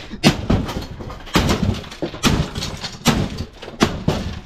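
A series of loud knocks and thuds, irregular, roughly one every half second to a second, with a short ring after each.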